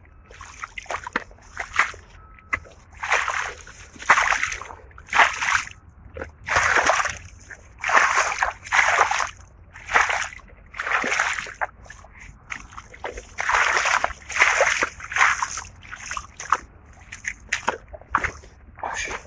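Footsteps splashing and squelching through a wet, muddy furrow, about one step a second.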